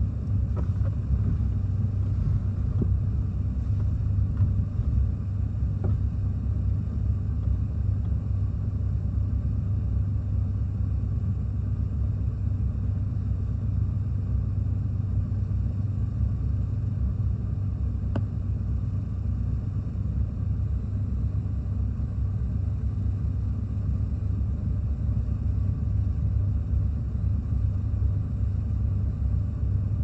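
Strong hurricane wind buffeting the microphone, heard as a steady low rumble.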